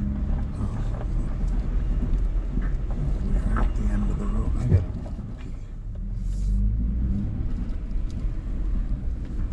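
Nissan Frontier pickup rolling slowly over a rough dirt track, heard from inside the cab: a steady low rumble of engine and tyres with scattered small knocks and rattles, and one sharp knock about halfway through.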